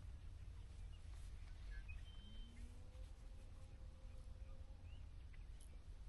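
Faint outdoor ambience: a few short, distant bird chirps and whistles over a low steady rumble.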